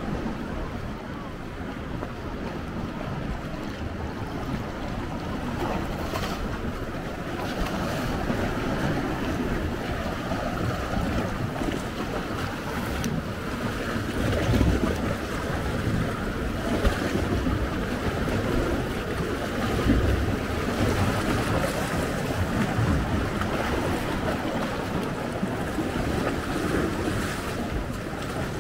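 Wind gusting on the microphone over sea waves lapping, an uneven rumbling rush that swells in places.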